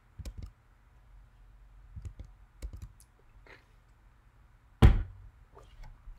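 Scattered computer keyboard keystrokes and clicks, with one heavier thump a little under five seconds in.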